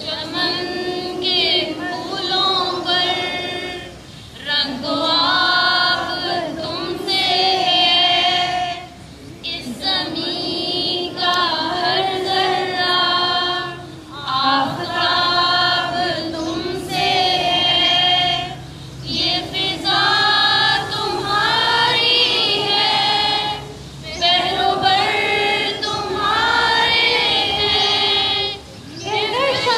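A group of women singing an Urdu patriotic song in unison through a microphone and loudspeaker. The song comes in sung phrases with short pauses for breath about every five seconds.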